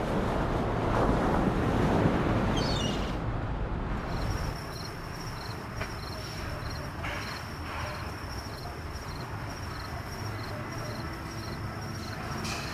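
Sea surf and wind, swelling and easing over the first few seconds. It then gives way to a quieter steady outdoor hush with a faint high chirp repeating nearly twice a second.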